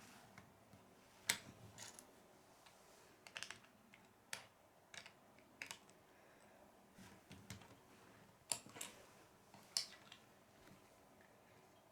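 Plastic Lego bricks clicking as they are handled and pressed together: scattered sharp clicks, sometimes in quick pairs, about a second apart.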